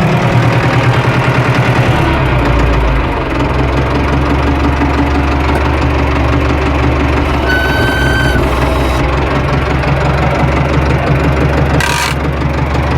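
Tractor engine idling steadily, its speed dropping about two seconds in. A short high-pitched squeal comes midway, and a brief hiss near the end.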